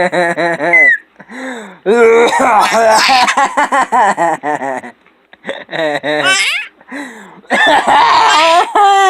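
A baby laughing hard in several long bouts of giggling belly laughter, with short pauses between them.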